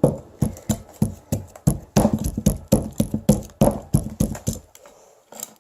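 Rapid, irregular knocking and tapping, about four knocks a second, as a digging tool chips at the hard dig block of a treasure-dig toy; it stops a little before the end.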